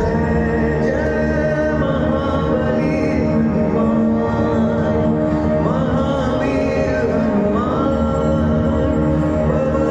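Laser-show soundtrack music: a steady, many-layered drone with a voice singing gliding notes over it.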